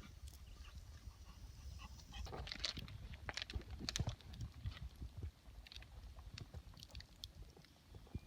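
Newly lit campfire crackling and snapping with irregular sharp pops, busiest a couple of seconds in and then sparser, over a low steady rumble.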